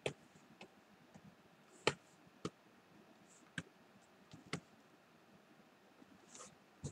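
Several sharp, light clicks and taps of computer input, such as a mouse, keyboard or drawing-tablet pen, irregularly spaced over quiet room tone.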